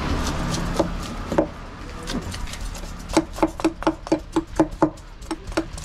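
Knife scraping scales off a snakehead (murrel) fish on a wooden chopping log: a few separate strokes, then a quick run of about six strokes a second from about three to five seconds in.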